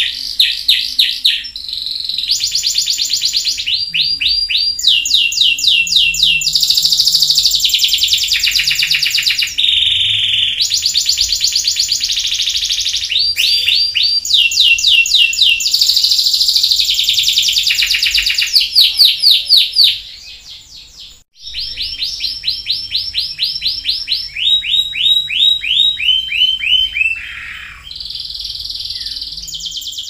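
Domestic canary singing a long song of fast trills: rapid runs of repeated notes, each run switching to a new pitch every second or two, with a short break about twenty seconds in.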